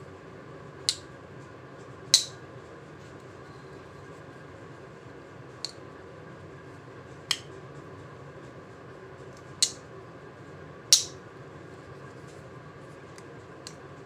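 A Rough Ryder Carbon Series canoe-pattern slip-joint pocketknife being worked by hand, its blades snapping open and shut against the backspring. There are six sharp metallic clicks, a second or two apart, and a few faint ticks near the end.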